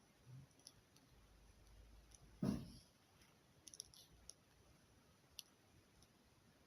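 Near silence with a few faint clicks, typical of handling the opened laptop. There is a brief low sound about two and a half seconds in.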